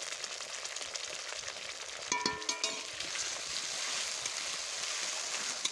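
Onions and chili, ginger and cumin pastes sizzling in hot oil in a steel kadai while a metal spatula stirs them. About two seconds in there is a brief metallic ring from the spatula striking the pan, and the sizzle grows a little louder after that as the paste is worked into the oil.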